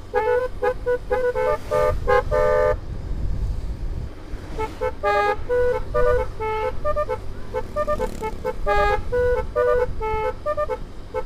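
Basuri musical air horn, a telolet-style multi-trumpet horn, playing a tune in quick short notes. There is a break about three seconds in, during which a low rumble is heard, and then the tune resumes.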